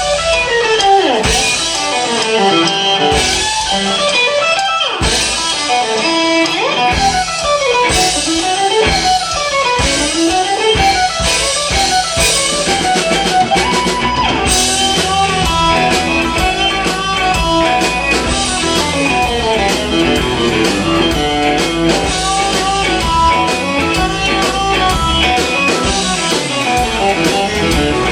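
Live blues-rock band playing an instrumental passage: electric guitar runs over drums. The drumming grows busier about halfway through.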